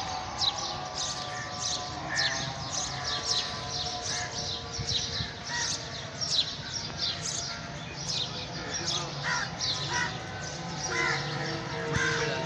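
Outdoor birdsong: crows cawing now and then among dense, continuous chirping of smaller birds.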